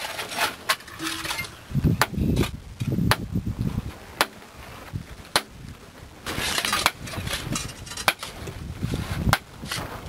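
Iron digging bars and picks striking rock and packed earth in the bottom of a hand-dug well: irregular sharp clanks and duller thuds about a second apart, with scraping between them.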